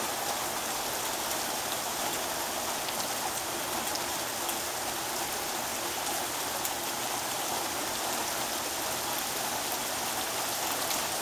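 Steady rain falling, with scattered sharper ticks of single drops.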